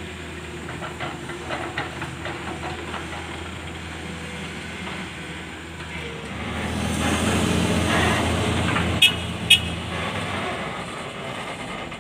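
Diesel engine of a log-laden Volvo FL10 twelve-wheel truck running as it drives up a dirt track, growing louder about halfway through as it works harder and easing off near the end. Two short, sharp high-pitched sounds come about two and a half seconds before the end.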